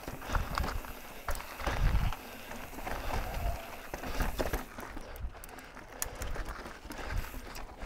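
Mountain bike riding over a rocky dirt and sandstone trail: tyres crunching on rock and grit, with dull thumps about two seconds in and again after four seconds as the wheels drop off ledges. Short rattling ticks from the bike run throughout and are most distinct in the second half.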